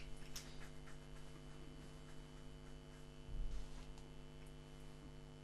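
Steady electrical hum under a quiet pause, with a few faint ticks and a soft low thump a little over three seconds in.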